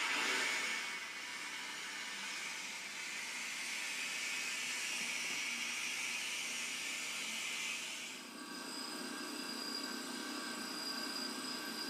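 Steady hiss of an air-driven tool as locomotive boiler tubes are rolled into the flue sheet, heard through a TV speaker. About eight seconds in the sound drops and a thinner hiss with a faint high whine goes on.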